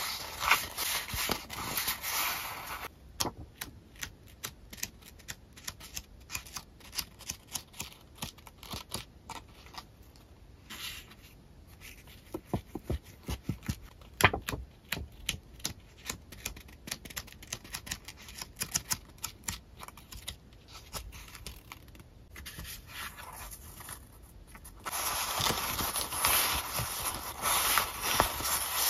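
Sheets of printed paper handled by hand: a dense rustle as the stack is shuffled and fanned, then a long run of quick, crisp flicks and ticks as the sheets are leafed through one by one, and a dense rustle again near the end as another stack is spread out.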